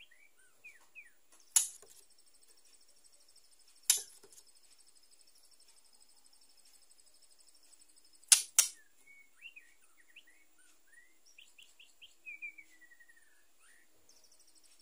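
Female white-rumped shama (murai batu) making soft short chirps and a falling whistled note. Four sharp loud clicks stand out, one about a second and a half in, one about four seconds in, and two close together midway. A steady high buzz like a cricket runs through the middle.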